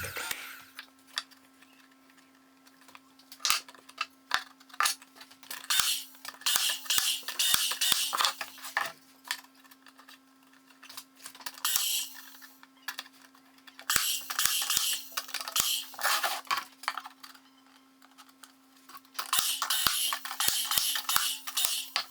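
Metal parts and tools clinking and scraping as they are handled on a workbench, in four spells of clicks and short scrapes with pauses between, over a steady low hum.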